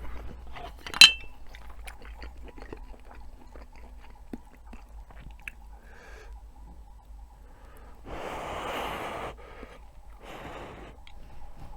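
Close-miked chewing of a mouthful of food, with soft wet ticks throughout. A single sharp clink with a brief ring about a second in, and two breathy rushes near the end.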